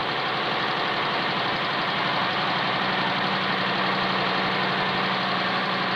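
Aircraft carrier's below-deck machinery running: a steady, unchanging drone with a constant hum.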